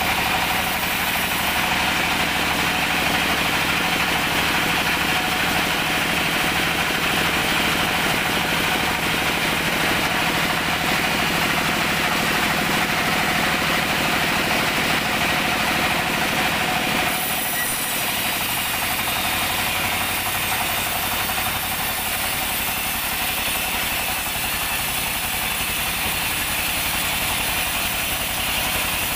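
Band sawmill running, its blade ripping lengthwise through a teak log over the steady drone of the machine. The sound changes abruptly a little past halfway through.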